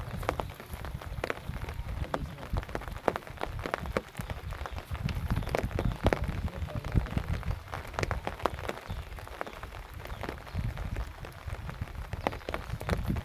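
Irregular water splashes and drips, many small sharp patters, over a low rumble.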